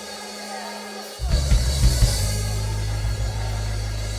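Live worship-band music: a soft passage, then drums and bass come in loudly about a second in and keep going.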